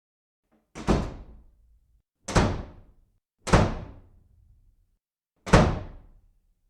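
Four heavy thuds, irregularly spaced, each dying away within about a second, with dead silence between them.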